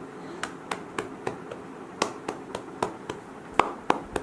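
A hand patting a baby's back to bring up wind after a feed: about three pats a second, with a couple of short breaks.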